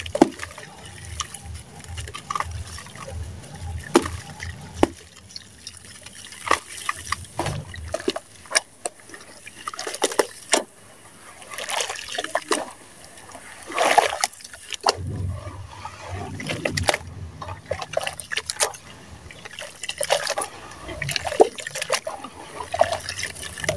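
Hands crumbling lumps of wet sand into a basin of water and squeezing the muddy mixture, with irregular splashes and sloshing.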